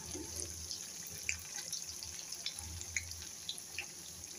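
Oil sizzling steadily around sabudana vadas shallow-frying in a pan on a low flame, with scattered small pops and crackles.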